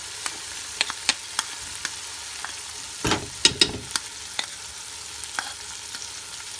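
Chicken cubes frying in hot oil in a pan: a steady sizzle with scattered sharp pops, and about three seconds in a spoon knocks and scrapes against the pan as the mixture is stirred.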